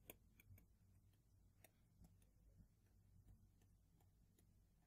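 Near silence, with faint scattered ticks of a stylus tapping and writing on a tablet.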